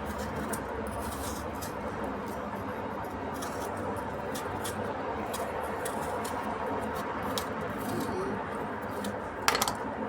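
Kitchen sounds during cooking: a steady hum with scattered small clicks and crackles, and one louder knock near the end.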